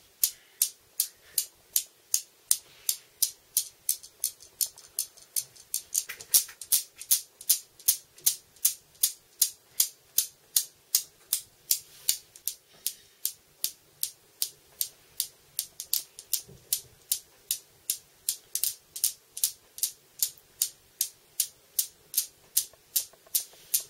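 Steel balls of a Newton's cradle clacking against each other in a steady, even rhythm, about three sharp clicks a second.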